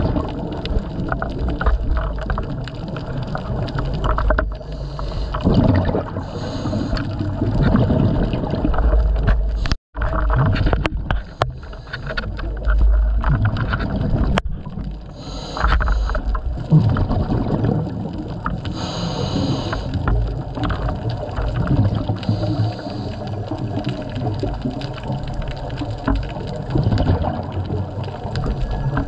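Scuba diver's regulator breathing heard underwater: a hiss with each inhalation every few seconds, and rumbling, gurgling exhaust bubbles in between. The sound cuts out for an instant about ten seconds in.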